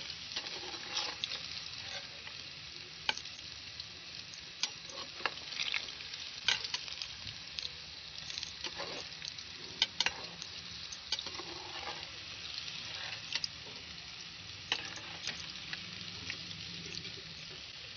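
Besan-battered fish pieces deep-frying in hot oil in an aluminium pot: a steady sizzle with frequent sharp pops and crackles. A slotted metal spoon stirs the pieces through the oil. This is the first frying, before the fish is cooled and fried again over high heat.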